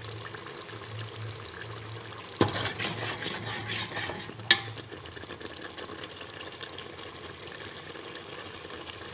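A steel spoon stirs and scrapes tomato, ginger and garlic paste frying in a metal pot. A burst of scraping starts about two and a half seconds in and lasts nearly two seconds, and a single sharp clink of spoon on pot follows soon after. A faint steady frying sound runs underneath.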